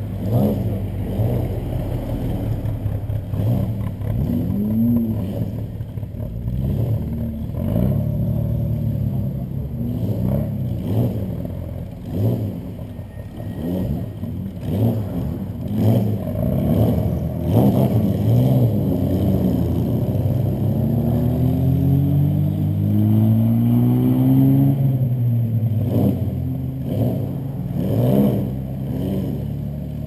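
Car engines revving and accelerating, the pitch rising and falling again and again, with a long climb in pitch about two-thirds through, over a steady low rumble.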